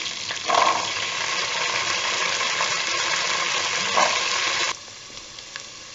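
Soaked chickpeas and macaroni sizzling in hot oil in a pan: a steady frying hiss that drops away abruptly between four and five seconds in.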